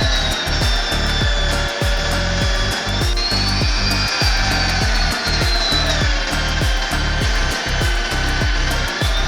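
An electric power tool working wood, its whine dipping and rising in pitch with the load, over background music with a steady beat.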